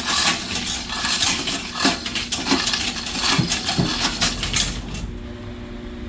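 Steel stove parts clanking and clinking against each other as they are handled and fitted together: a quick, irregular run of metallic knocks that stops about five seconds in.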